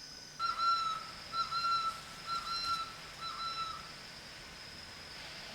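A bird calling in four clear, evenly spaced whistled notes of about half a second each, over a steady high hum.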